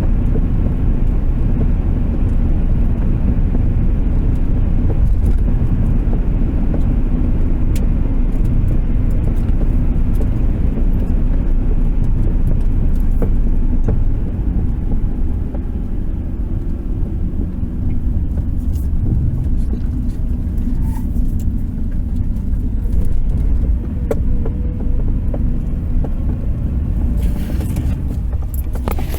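Cabin of a 1993 Subaru Impreza driving slowly: steady engine and road rumble, with scattered sharp pops from the middle of the dashboard at irregular intervals, more of them in the second half. It is an undiagnosed popping that comes only once the car is warm after highway driving.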